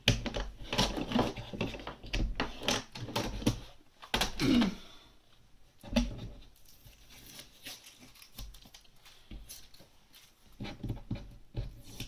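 Hands lifting a plastic stencil and peeling masking tape off it on a cutting mat: a run of rustles, clicks and taps, busiest in the first few seconds and sparser later, with a brief low falling sound about four seconds in.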